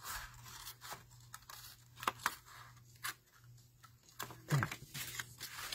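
Small scissors snipping through a sheet of patterned paper, a few sharp separate cuts with the paper rustling as it is handled between them.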